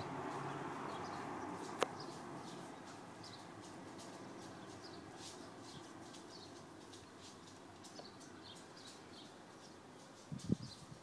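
Faint outdoor ambience with small birds chirping softly and repeatedly, a single sharp click about two seconds in and a few soft knocks near the end.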